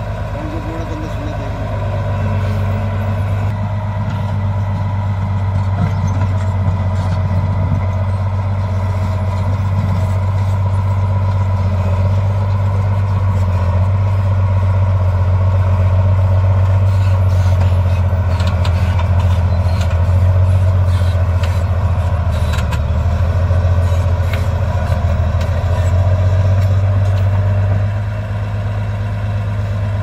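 Komatsu D50A-17 crawler bulldozer's diesel engine running steadily under load as the blade pushes earth and rock, a loud low drone that eases slightly near the end.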